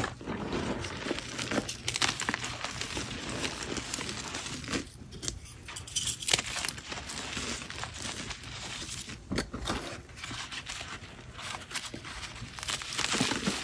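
Hands crumbling and rubbing purple-dyed reformed gym chalk in loose chalk powder: a dense run of dry crackling and crunching with small sharp clicks, easing off briefly twice.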